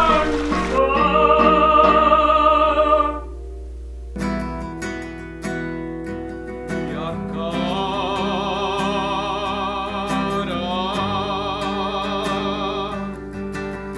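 Film score music: a high melody with strong vibrato over sustained chords, which breaks off about three seconds in; plucked guitar notes start about a second later, and the vibrato melody comes back around halfway through.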